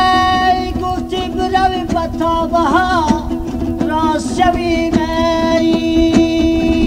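A man singing a Farkhari rubai (folk quatrain) to a dambura, the two-stringed Afghan long-necked lute, strummed steadily underneath. The voice holds a long note at the start, twists through ornamented turns in the middle, and settles on another held note near the end. Old cassette recording.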